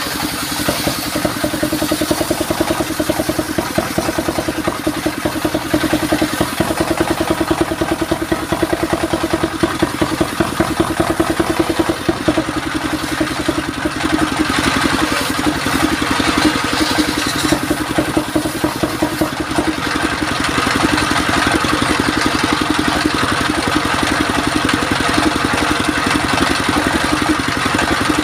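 Stationary engine running steadily, driving a belt-driven table circular saw. The blade rips a mahogany board into planks, and its cutting hiss swells and fades as the board is fed through.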